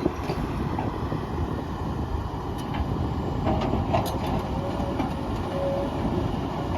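Komatsu PC210LC-11 hydraulic excavator's diesel engine running steadily under load while digging, with a few faint knocks.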